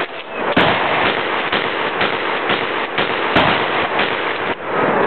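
Two loud gunshots about three seconds apart, with fainter sharp cracks between them.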